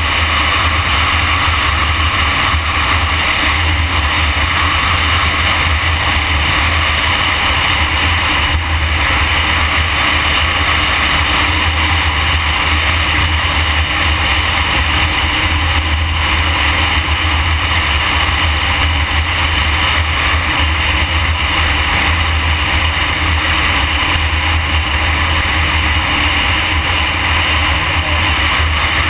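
Motorcycle cruising at steady highway speed from a bike-mounted camera: loud, constant wind rushing over the microphone with the engine's drone underneath, no gear changes or revving.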